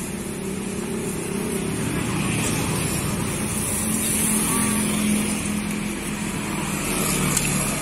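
A motor vehicle engine running close by, a steady hum that swells around the middle, over street noise.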